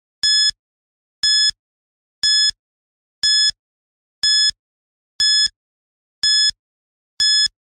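Quiz-game countdown timer sound effect: short electronic beeps, one each second, eight in all, with silence in between, marking the seconds left to answer.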